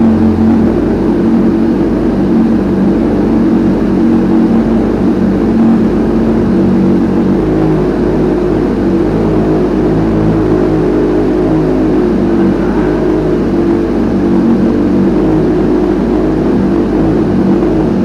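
Honda CBR1000RR-R SP's inline-four engine running at steady revs, with no rise or fall in pitch.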